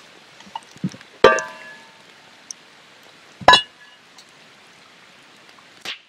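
Two sharp, ringing metal clinks about two seconds apart as the Dutch oven of stew is handled over the campfire, with faint small crackles between them.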